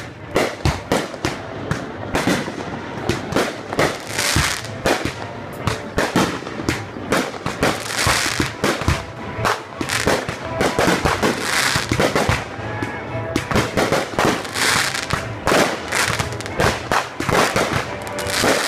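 Fireworks display with shells bursting in quick succession, many sharp bangs close together, and crackling bursts every few seconds.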